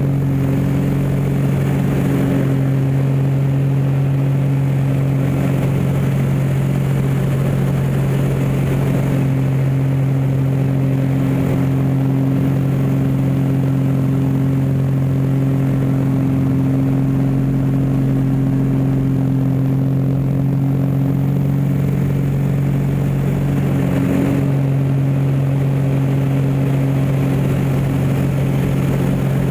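Aerobatic biplane's piston engine and propeller heard from inside the cockpit, a loud steady drone at constant power through aerobatic manoeuvres, its tone shifting slightly now and then, most clearly about 24 seconds in.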